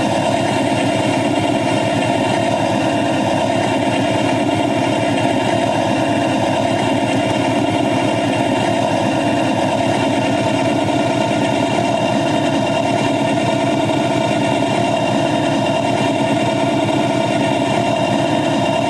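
The locomotive engine of a 7½-inch gauge ride-on miniature train runs steadily as the train travels along the track, with a fast, even pulsing and a steady hum.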